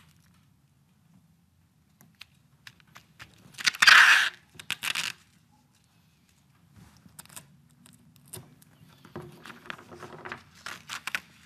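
Paper masking tape pulled off its roll with a loud rip about four seconds in, followed by a shorter rip. From about seven seconds on, paper rustles and crinkles as the tape is pressed down along the edge of a strip of paper.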